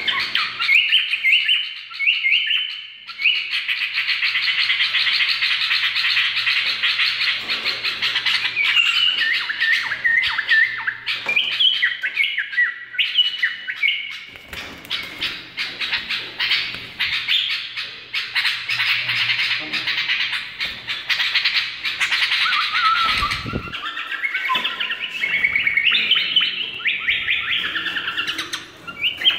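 Caged bulbul singing short, bubbly whistled phrases over a dense, continuous chatter of bird chirps.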